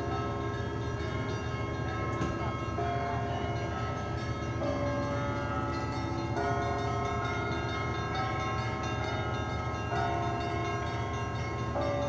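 Russian Orthodox church bells ringing: several bells of different pitches struck in turn, a new strike about every one and a half to two seconds, each left ringing on over the others.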